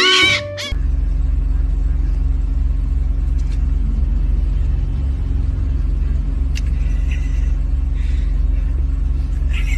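Steady low rumble with a low hum, like a running engine, starting suddenly just under a second in.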